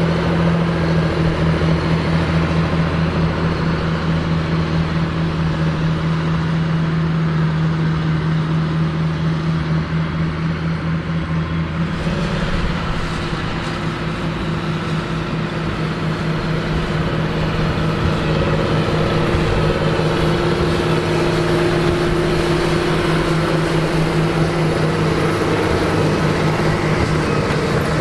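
John Deere 8530 tractor's six-cylinder diesel running steadily under load while pulling a Krone BigPack large square baler, with the baler's machinery clattering along. About twelve seconds in, the steady lower hum drops away and the sound changes.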